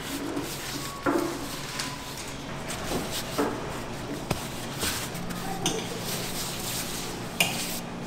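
A gloved hand pushing and folding a large mass of bagel dough on a wooden table, with soft handling sounds and scattered short knocks and clatter of kitchen utensils.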